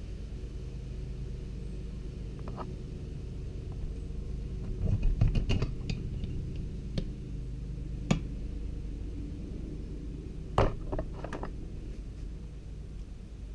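Aluminium crankcase halves of a 1985 Kawasaki KX125 two-stroke engine being worked apart by hand and lifted off: a cluster of metal knocks and scrapes about five seconds in, a sharp clack after eight seconds, and another clunk with a few rattles near eleven seconds, over a steady low hum.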